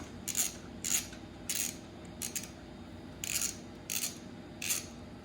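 Repeated hand rubbing or scraping strokes, like filing or sanding, about three every two seconds with a hissing rasp to each stroke.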